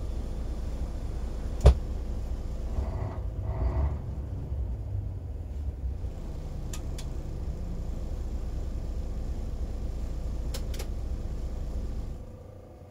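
Mercedes-Benz Travego coach heard from the driver's cabin while driving: a steady low engine and road rumble, with a sharp click about two seconds in and a few fainter clicks later. The rumble drops away near the end.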